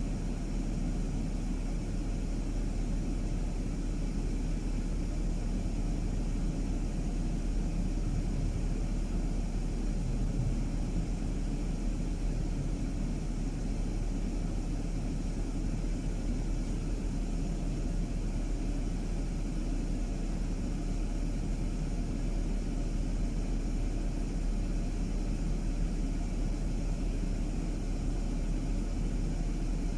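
Car driving along, a steady low rumble of engine and road noise.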